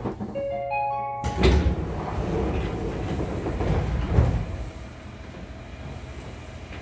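Pneumatic double doors of a 205 series commuter train car sliding open at a station stop. A short rising run of stepped tones comes first, then a sudden rush of air and rumbling door panels about a second in, and a knock a little after four seconds. After that the standing car settles to a steady hum.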